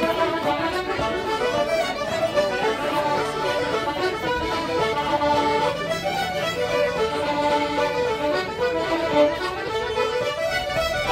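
An Irish traditional music session: several fiddles, a button accordion and banjos playing a tune together.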